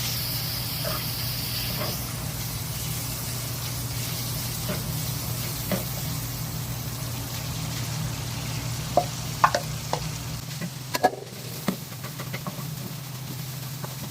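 Vegetables and chicken frying in a hot pan, with a steady sizzle over a low hum. In the second half a spatula clicks sharply against the pan as the food is stirred.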